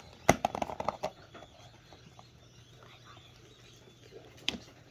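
Clear plastic deli cup being handled: a quick run of sharp plastic clicks and crackles about a third of a second in, and one more click near the end, over a faint steady low hum.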